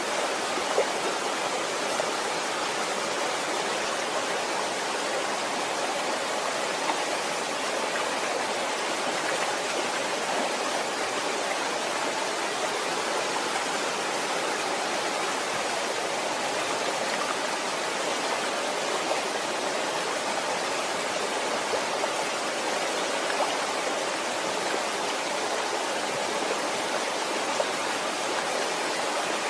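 Waterfall: a steady rush of falling water, with a few faint splashes standing out now and then.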